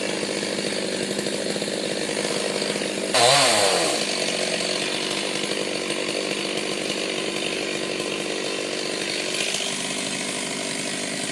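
Chainsaw running steadily as it cuts a tree. Its engine swings in pitch and gets louder for about a second, around three seconds in.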